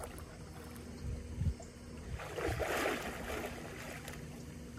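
Pool water splashing and sloshing as a swimmer strokes through it, loudest for about a second near the middle.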